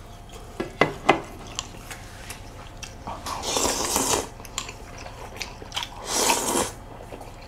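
A few light clicks of dishes and chopsticks, then two slurps, about three seconds in and again near the end, as hot glass noodles and soup are sucked up from a bowl.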